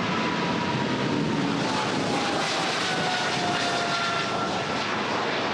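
Airplane engine noise, a steady rush with a faint whine that slowly falls in pitch, like an aircraft passing.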